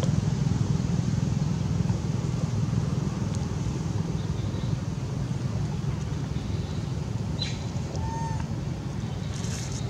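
Steady low rumble of outdoor background noise, with a few faint clicks and a brief faint chirp about eight seconds in.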